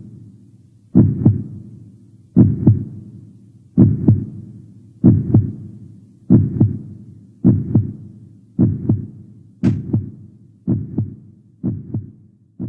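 Heartbeat sound effect: paired low thumps, lub-dub, repeating about once a second and gradually quickening, a little softer toward the end.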